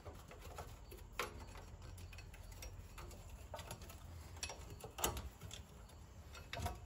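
Scattered light metallic clicks and taps of rear drum parking brake hardware being worked by hand as the self-adjuster is pried out from between the shoes, with a sharper click about a second in and another near five seconds.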